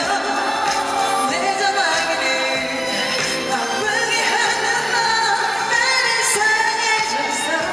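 A woman singing a Korean pop song live into a handheld microphone over a full backing band track, her voice wavering on held notes through the middle.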